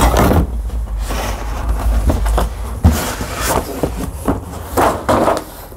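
Large cardboard shipping boxes being handled and slid across a table: irregular scraping and rustling of cardboard, with a sharp knock a little under three seconds in.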